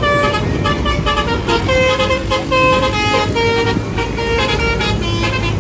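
Basuri telolet musical horn on a bus playing a quick tune of short notes that hop between pitches, over a low engine rumble.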